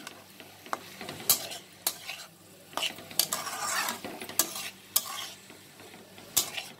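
Flat metal spatula scraping and knocking against a metal kadai as sliced potatoes and tomatoes are stirred while they fry in oil, with a light sizzle underneath. The strokes come unevenly, roughly once a second, with a longer scrape midway.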